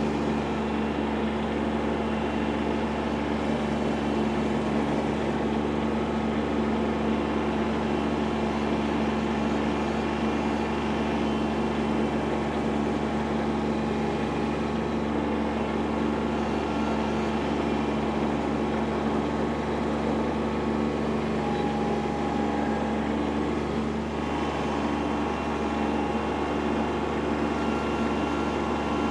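Kubota B2601 compact tractor's three-cylinder diesel engine running steadily at working speed, driving a PTO stump grinder at a stump.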